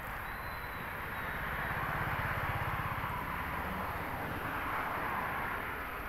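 A motor vehicle passing, its engine swelling from about a second and a half in and fading near the end, over steady outdoor background noise.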